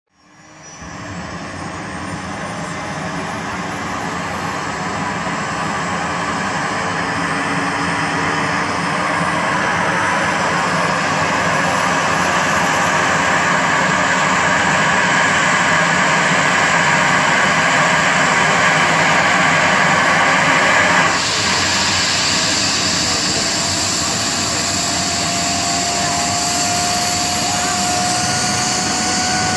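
Airbus H135 helicopter's twin Pratt & Whitney PW206B3 turboshaft engines running on the ground before take-off. A high turbine whine climbs in pitch over the first ten seconds or so as the engines spool up. About two-thirds through the sound changes abruptly, and a lower whine then rises slowly toward the end.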